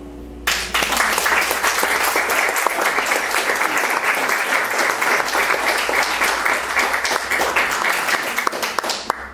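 The last chord of a classical guitar dies away, then about half a second in an audience breaks into steady applause that lasts almost to the end.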